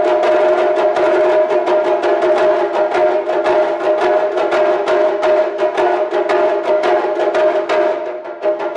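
Japanese taiko drum ensemble playing rapid, even strokes over a steady ringing pitch; the playing briefly thins out near the end.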